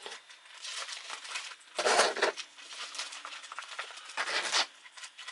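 Plastic bag crinkling and rustling in several bursts, the loudest about two seconds in.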